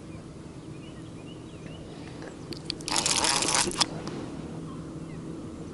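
Conventional fishing reel ratcheting briefly while a fish is being played: a burst of rapid clicking about three seconds in. Under it runs a faint steady low hum, with a few small bird chirps in the first half.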